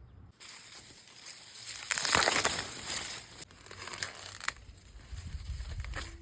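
Corn leaves and husks rustling and crackling as they are handled, loudest about two seconds in.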